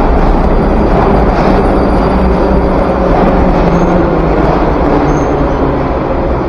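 Moskva-2024 metro train pulling into the station and slowing to a stop, with a loud, steady rumble of wheels and running gear that eases slightly near the end.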